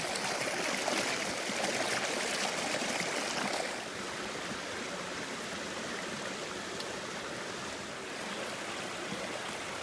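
Creek water running and splashing through rock pools, a steady rush that steps down in level about four seconds in.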